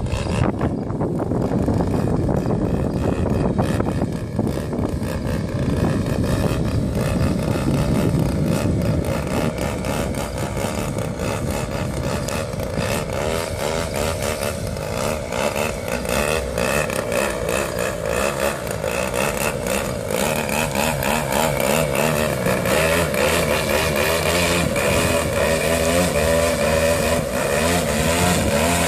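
Gasoline engine of a 60cc DLE two-stroke on an RC aerobatic airplane, running continuously, its pitch rising and falling with the throttle.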